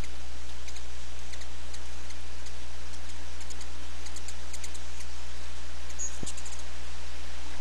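Ruby-throated hummingbirds chipping at a feeder: scattered short, high ticks, some in quick runs, with a brief high note about six seconds in. Under them runs a steady low hum, the loudest thing throughout.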